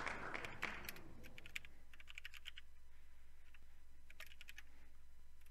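Typing on a computer keyboard: quiet keystroke clicks in a few short runs with pauses between them.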